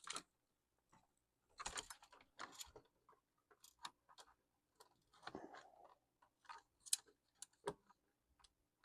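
Faint, irregular small clicks and brief light scrapes as the parts of a laptop are handled and its connectors are worked loose during disassembly.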